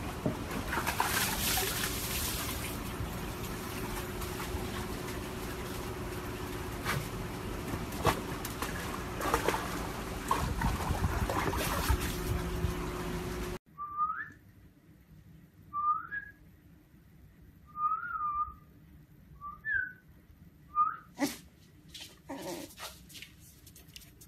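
A husky splashing and thrashing about in a plastic tub of water, with sharp knocks. After a sudden cut, a run of short, high squeaks rising in pitch, about one every second or two, with a few knocks near the end.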